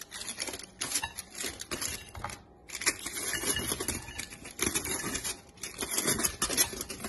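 Aluminium foil crinkling and rustling as crispy hash brown rounds are tipped out of it, with light taps of the rounds dropping onto a plate; a short lull about two and a half seconds in.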